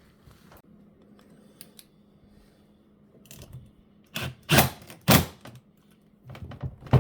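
Small hardware and tools being handled: scattered light clicks, then a few loud clattering rattles about four to five seconds in, and more clicks near the end.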